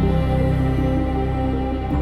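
Slow instrumental background music of sustained chords over a deep held bass note.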